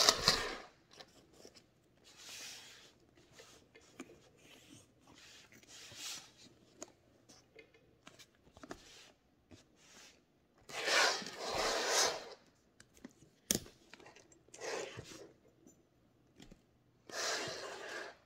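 Leather handbags with metal chain straps (a Chanel 2.55 Reissue 226 and a Dior Caro) being handled on a table: a sharp knock at the start as a bag is moved, then spells of rustling and rubbing, a single sharp click, and more rustling as a bag's flap is opened near the end.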